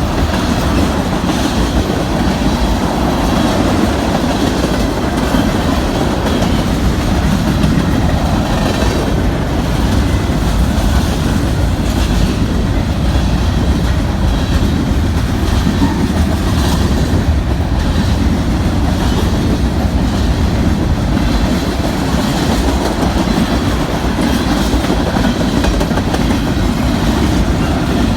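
Union Pacific mixed freight train's cars rolling past, steel wheels clacking over the rail joints under a steady rumble.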